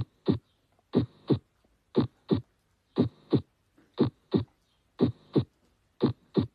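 Heart sounds, a steady lub-dub about once a second, each beat two short thumps with clean quiet between the beats and no murmur: a normal heart sound.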